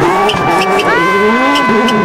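Toyota Yaris WRC rally car's turbocharged four-cylinder engine revving up and down hard under throttle, with short sharp crackles. A steady high tone that does not follow the engine cuts in twice, once at the start and again about a second in.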